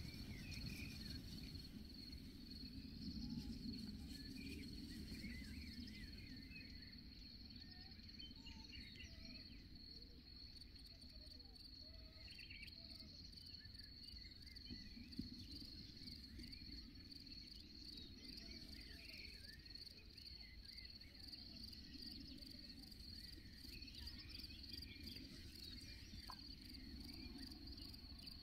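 Faint, steady chirping of crickets, a continuous high trill, over a low background rumble.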